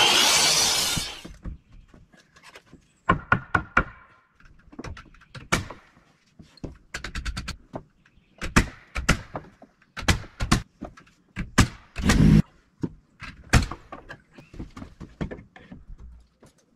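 Carpentry work on wood: a loud burst of noise in the first second, then irregular knocks and thuds of wood and tools, some in quick clusters.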